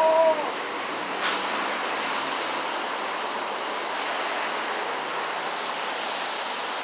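Steady rushing noise of road traffic going past, with a short pitched sound right at the start and a brief sharp rush of noise a little over a second in.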